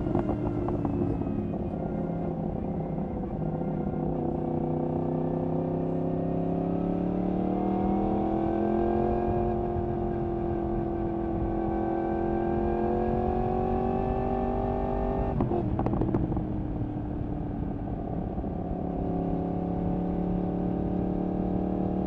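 Yamaha MT-10's crossplane inline-four engine, through an Akrapovič exhaust, running under way. Its pitch climbs gradually as the revs rise, holds, then drops sharply about two-thirds of the way through with a short crackle, and it carries on at lower revs.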